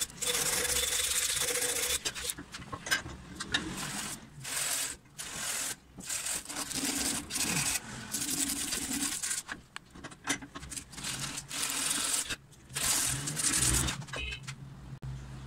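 Rust being scraped and rubbed by hand off the steel of an old thread-tapping tool, in a series of irregular rasping strokes of half a second to two seconds each, with short pauses between them.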